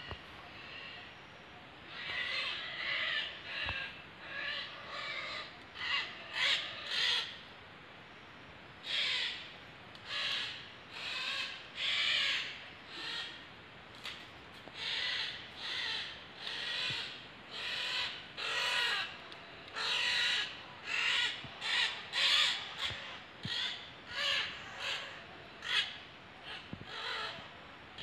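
Parrots giving loud, harsh screeching calls over and over, roughly one a second, with a short break a third of the way through.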